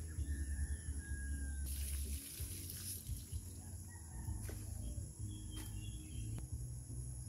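Water splashing for about a second as the milky rice-washing water is poured out of a stone pot. Behind it birds chirp briefly and a steady high insect whine runs on.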